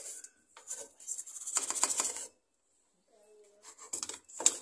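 Toothbrush bristles scrubbing the plastic detergent-drawer recess of a Samsung top-loading washing machine, in short rasping bursts with a pause near the middle.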